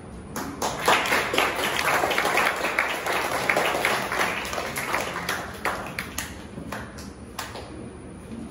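A group of people applauding by hand. The clapping starts about half a second in and thins out to a few scattered claps near the end.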